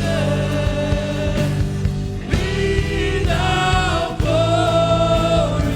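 Slow live worship music: a band plays steady sustained chords while voices hold long sung notes, several in a row, each lasting about a second.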